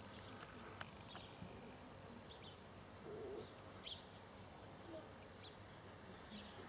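Faint outdoor ambience with a few soft, distant bird chirps and one low, brief call about three seconds in.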